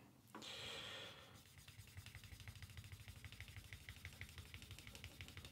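Wooden edge burnisher rubbed rapidly back and forth along the dampened edge of a leather piece: faint friction strokes, several a second, polishing the edge smooth. A first short rub is followed by a steady run of quick, even strokes.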